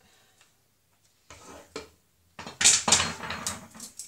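Metal serving tongs and crockery clattering against plates and a saucepan: a few faint knocks, then a burst of loud, sharp clinks and scrapes in the second half, loudest about two and a half seconds in.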